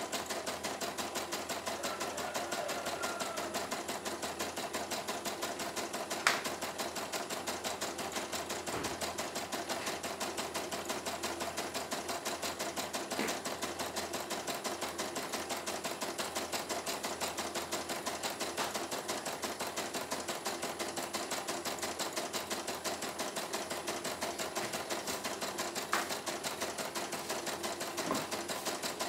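CNY E900 computerized embroidery machine stitching a design: a rapid, steady clatter of the needle mechanism, with a few sharper clicks standing out now and then. The machine is on a test run, embroidering normally.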